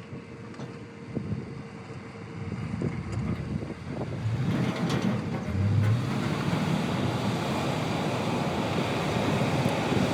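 Heavy diesel machinery at a stone-loading site running, with scattered knocks in the first few seconds; about four seconds in the engine noise grows louder and stays at a steady, noisy level.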